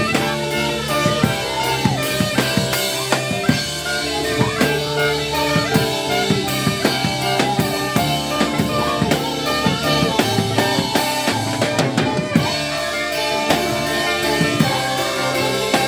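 Live band music driven by a drum kit, with kick, snare and rim hits over sustained held chords, playing steadily throughout.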